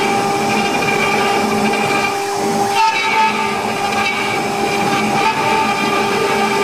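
CNC router spindle running with a steady, whining hum of several tones while a conical engraving bit carves into MDF, with the noisy rasp of the cut underneath. The sound shifts briefly a little under halfway through.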